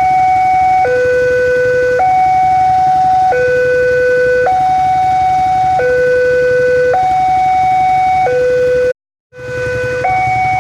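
Railway level-crossing warning alarm sounding its two alternating electronic tones, high then low, each held for about a second, over a low rumble. The sound cuts out briefly about nine seconds in.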